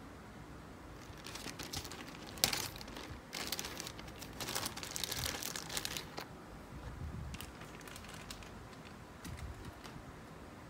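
Clear plastic zip-lock bag crinkling as it is opened and handled and a lemon wedge is taken out, with one sharp click about two and a half seconds in. The crinkling dies down after about six seconds to a few light rustles.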